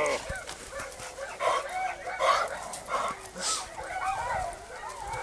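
Young pointer dogs on leashes whining and yelping in a run of short, high, rising-and-falling cries, eager to be let go.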